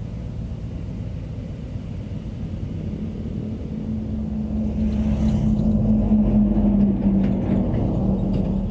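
A passing engine: a low rumble with a steady hum that builds from about three seconds in, is loudest a little past the middle, then begins to ease off near the end.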